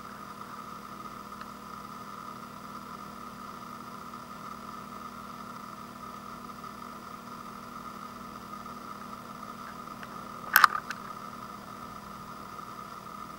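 Steady background hum with a faint high whine, broken about ten seconds in by one sharp knock with a brief rattle after it, the loudest sound.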